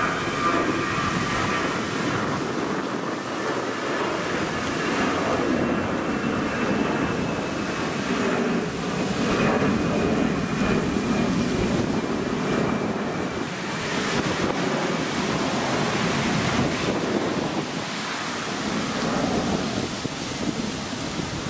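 Airbus A320 jet engines at climb power after takeoff: steady jet noise with a faint high whine that slowly falls in pitch as the airliner flies away.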